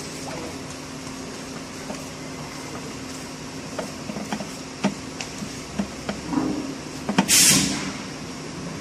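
Light clicks and knocks of an automatic transmission's valve body being fitted up into the transmission by hand, over a steady hum. A short loud hiss about seven seconds in.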